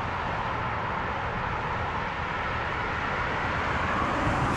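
Steady roadside noise of traffic on a highway, with wind rumbling on the microphone, swelling slightly near the end.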